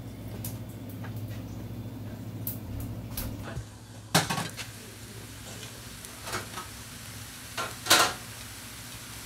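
A glass pot lid clatters against a metal pan as it is handled and lifted off: a few sharp clanks, the loudest about four seconds in and just before eight seconds. A low steady hum fills the first three and a half seconds.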